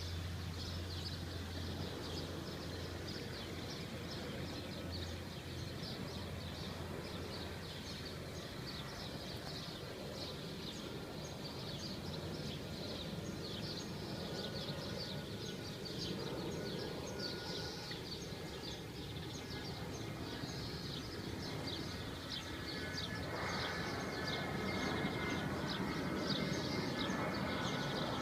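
Outdoor ambience full of rapid, overlapping bird chirps. About 23 s in, a louder engine noise with a whine swells in and holds.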